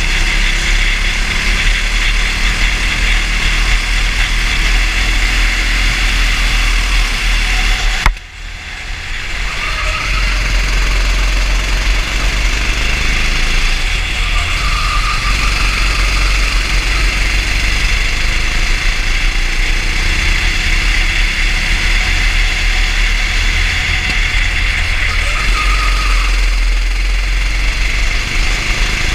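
Racing kart engine running at speed, heard onboard over a steady hiss. About eight seconds in there is a sharp knock, then the sound drops away suddenly and builds back up over about two seconds.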